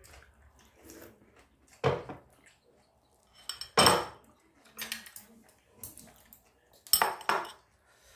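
Spoon and dishes clinking at a meal: a few sharp clinks of a metal spoon against ceramic bowls, the loudest about four seconds in and two in quick succession about seven seconds in.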